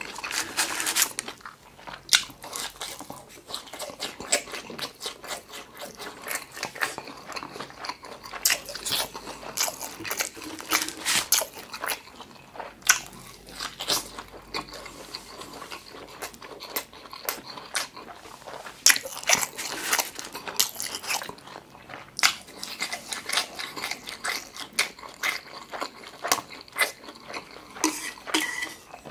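Close-miked chewing of an egg-battered beef pancake (yukjeon), with many short, sharp wet mouth clicks at an uneven pace.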